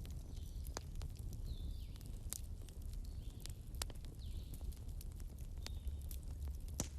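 Wood bonfire burning: irregular sharp crackles and pops over a low steady rumble of the flames, with the loudest pop near the end.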